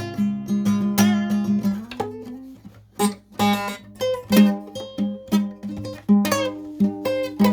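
Repaired acoustic guitar strung with only three used strings, played with a run of picked notes and strums that ring on, not in tune.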